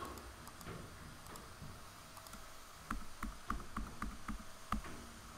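Computer keyboard keystrokes: the F key (make edge/face in Blender) tapped about seven times in a quick run of sharp clicks, roughly three a second, starting about three seconds in, with the last the loudest.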